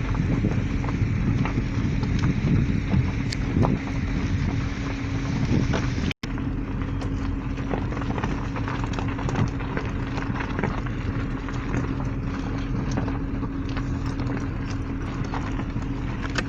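Vehicle driving on a rough mountain road: a steady engine drone and road rumble with frequent small rattles and knocks. The sound cuts out for an instant about six seconds in.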